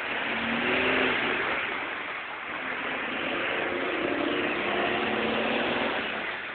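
Freight train's container wagons rolling past: a steady rush of wheel and rail noise, with brief faint whining tones now and then.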